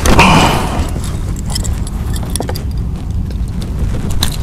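Pliers and lure hooks clinking and rattling as a fish is unhooked: short metallic clicks scattered over a steady low rumble, with a louder rustling burst at the very start.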